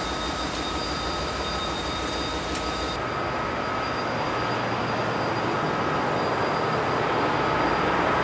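Steady drone of a ferry's engine-room machinery, growing gradually louder. A thin high whine sits over it for the first three seconds and then stops.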